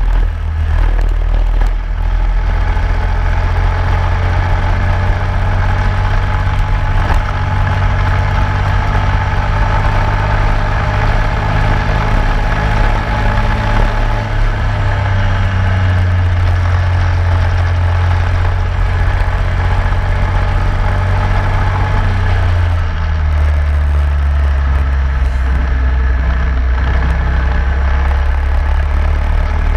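Racing kart engine running hard at speed, heard from the kart itself, with a steady engine note and road and wind noise. The engine note changes about 23 seconds in.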